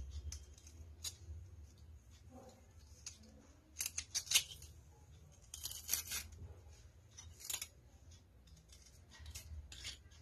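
Metal garlic press squeezing garlic cloves into a bowl: faint metallic clicks and scrapes of the press and the crushed garlic, in a few short spurts.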